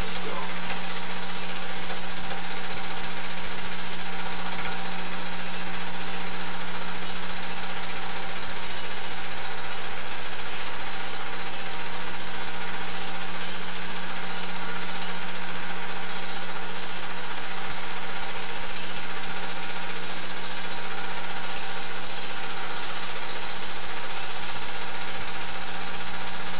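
Super 8 film projector running, a steady mechanical whir with a constant low hum that does not change.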